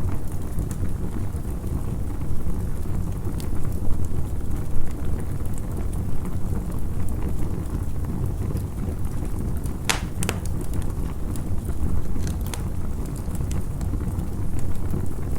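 Campfire burning: a steady low rumble with scattered sharp crackles and pops, two louder pops about ten seconds in.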